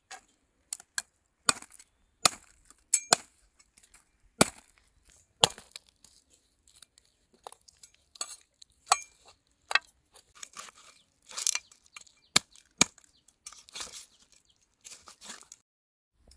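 Irregular sharp clicks and knocks, with a few short crackly tearing sounds, from food being handled and cut.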